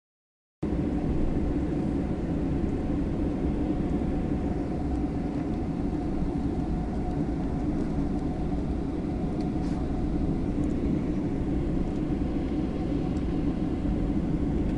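Steady low drone of distant jet aircraft engines running at an airfield, with a faint held hum; it starts suddenly just after the beginning.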